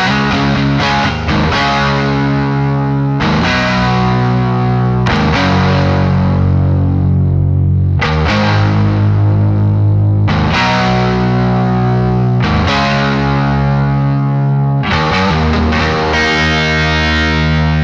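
Electric guitar played through overdrive, with distorted chords strummed every two or three seconds and left to ring out.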